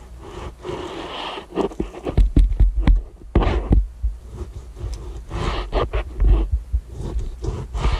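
Kitchen knife cutting through a bone-in piece of salt pork on a plastic cutting board: irregular knocks and dull thuds of the blade and hands against the board, with a few short scraping strokes.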